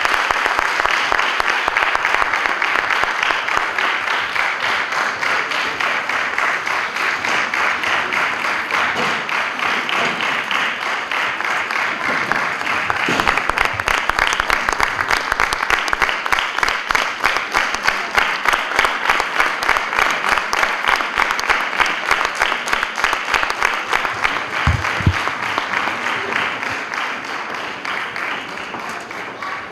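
Audience applauding; about halfway through the clapping turns into a fast, even rhythm, then dies away near the end.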